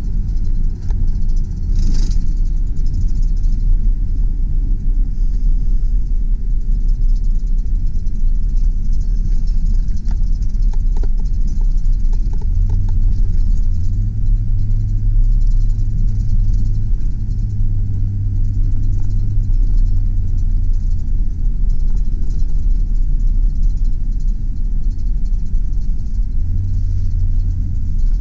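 2001 Chevrolet Silverado 2500 pickup driving on a test drive: a steady low rumble of engine and road noise. The engine note steps up about twelve seconds in and eases back around twenty seconds in, rising again near the end, with one sharp knock about two seconds in.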